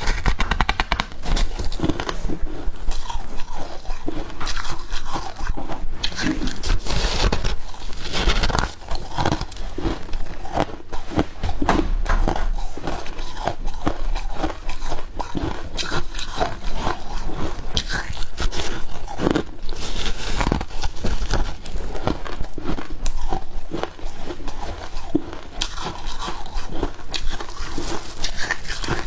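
Close-miked biting and chewing of freezer frost: a dense, continuous run of crisp crunches as the packed ice is bitten off and chewed.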